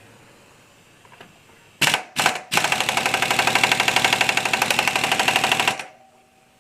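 Impact wrench giving two short bursts, then hammering steadily for about three seconds at a rapid, even rate before stopping.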